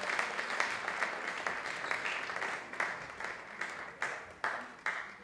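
Audience applauding, the dense clapping dying down and thinning to a few scattered separate claps near the end.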